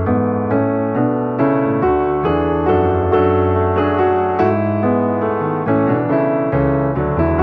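Background piano music, a steady flow of notes over held bass tones.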